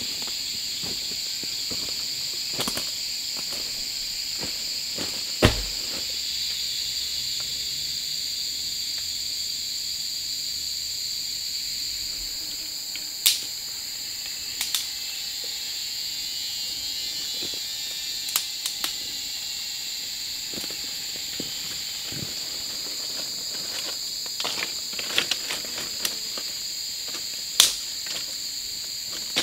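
Steady, high-pitched chorus of insects such as crickets, with scattered sharp knocks and snaps over it, the heaviest a thump about five seconds in.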